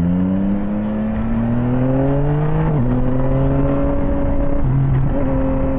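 Yamaha Tracer 9 GT's inline-three engine accelerating, its pitch rising for nearly three seconds, then dropping sharply at an upshift and holding steady. Wind rumbles on the microphone underneath.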